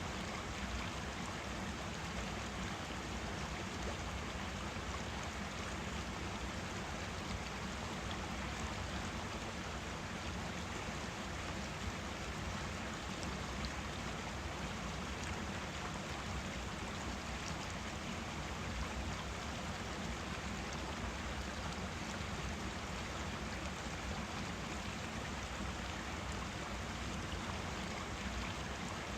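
Forest stream flowing: a steady, unbroken rush of running water.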